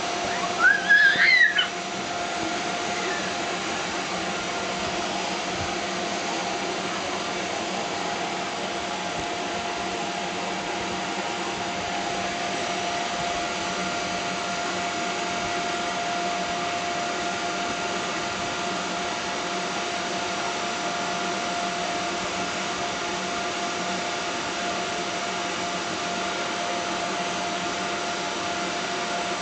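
Bounce house's electric inflator blower running steadily, a constant whir with a steady hum, heard from inside the inflatable. A brief high squeal rises about a second in.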